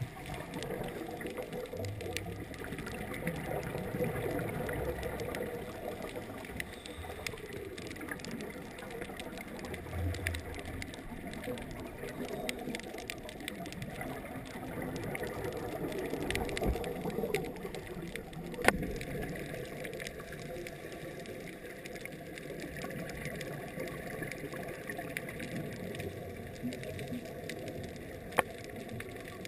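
Scuba divers' exhaled bubbles gurgling up from their regulators, heard underwater through a waterproof camera housing, swelling every few seconds with each breath. Two sharp clicks, one just past the middle and one near the end.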